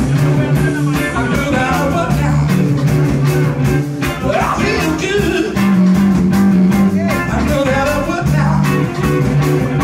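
Live band playing a loud funk-rock cover: electric guitar, electric bass and drum kit keep a steady beat, and a male lead singer sings into a microphone.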